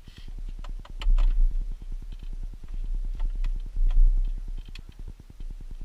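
Scattered clicks and knocks of hands working behind the dashboard of a 1989 Chevy Suburban, feeling for the heater core pipes through the firewall, over a low rumble and a fast, even ticking.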